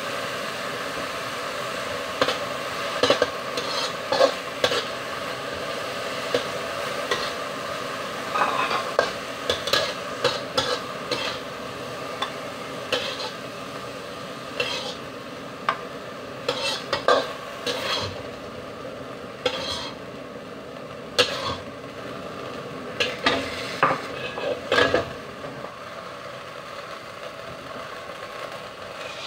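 Bean sprouts sizzling in a hot wok while a metal spatula repeatedly scrapes and clinks against the pan, stirring them and then scooping them out onto a plate. The sizzle drops a little near the end as the wok empties.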